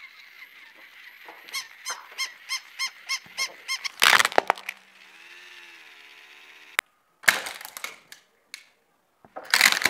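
Battery-powered plush walking toy dog whirring and giving a run of electronic barks, about three a second, then a loud crunch as a car tyre rolls over and breaks it open. A wavering electronic tone follows for a couple of seconds and cuts off suddenly. Near the end come two more cracking crunches of a plastic toy crushed under the tyre.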